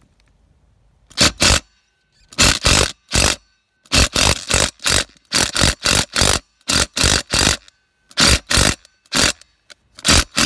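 Ridgid brushed cordless impact driver hammering on a tractor lug nut in about a dozen short trigger bursts with brief pauses between them. The nut does not break loose: the driver lacks the torque to undo it.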